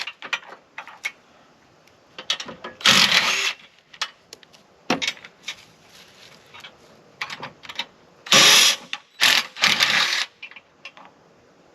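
Tool work loosening the three bolts that hold an old travel-trailer tongue jack: several short loud bursts, about half a second each, with scattered small clicks between them.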